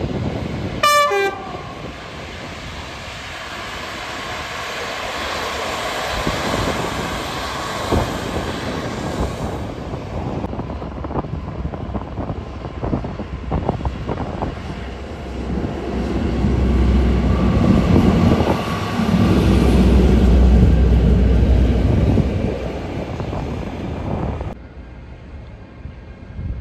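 A short train horn blast about a second in. Then trains moving through a rail yard: wheels clicking over the track and points, and a heavier low rumble that is loudest a little past the middle and fades near the end.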